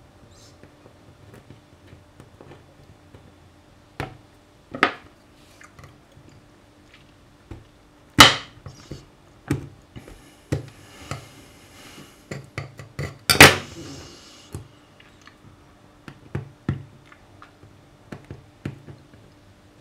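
Fingernails and a small knife blade picking and scraping melted plastic bag off a glass-ceramic hob: scattered clicks and short scratches, with a longer scraping stretch in the middle and two loud sharp scrapes about eight and thirteen seconds in.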